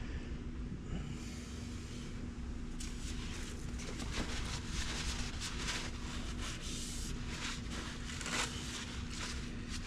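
Irregular rubbing and scraping handling noises, close by, over a steady low hum.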